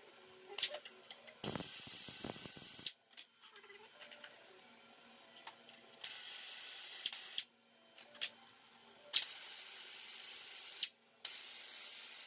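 Pneumatic air ratchet running in four short bursts of steady high-pitched whine with brief pauses between, spinning out the 10 mm bolts of the upper timing cover. A few light clicks fall in the gaps.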